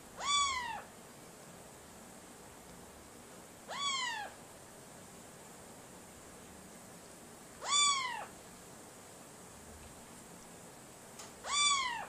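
Four near-identical meows, about four seconds apart, each a short call that rises and then falls in pitch.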